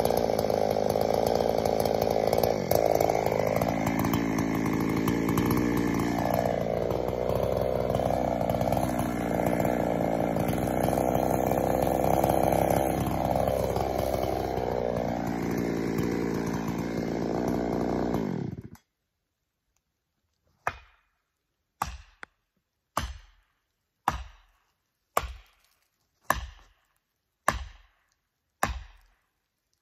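Ported and machined Jonsered 625 two-stroke chainsaw running flat out in a cut, its pitch sagging and recovering under load, then cutting off abruptly. After a short silence come about eight sharp knocks, roughly one a second, each ringing briefly.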